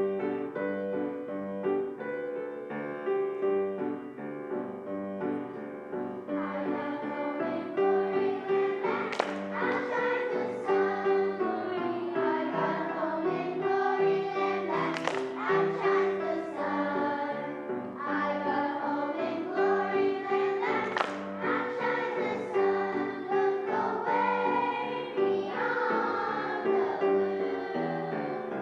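A song with keyboard accompaniment, a choir of voices joining in about six seconds in.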